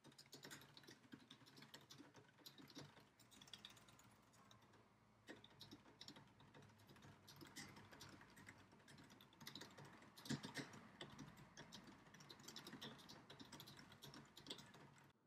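Faint, fast typing on a computer keyboard: a steady patter of key clicks, with a few louder keystrokes about ten seconds in.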